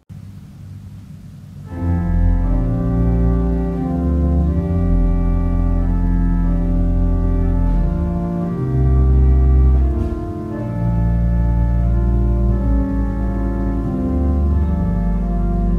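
Church organ playing slow, sustained chords over deep held bass notes. It starts softly and swells to full volume about two seconds in.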